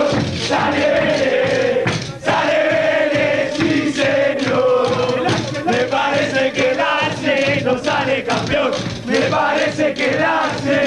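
Crowd of football supporters singing a chant together, a sustained sung line in phrases with a short break about two seconds in.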